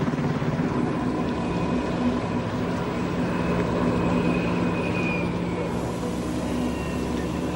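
Jet airliner engines running steadily: a broad rush with a few steady whining tones over it, one faint high tone dipping slightly about five seconds in.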